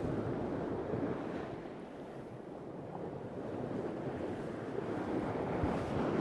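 Sailboat's hull driving through choppy sea under sail: water rushing and splashing along the bow, with wind buffeting the microphone. The sound eases a little about two seconds in and swells again toward the end.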